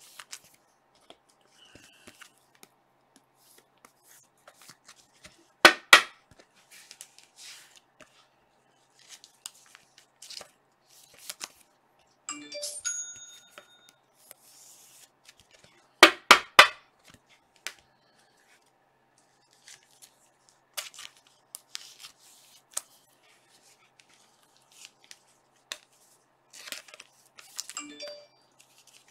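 Trading cards being handled and flipped through, with light rustles and clicks of card and plastic sleeve and two loud crackling, tearing-like snaps about 6 and 16 seconds in. A short electronic chime sounds twice, about 12 seconds in and near the end.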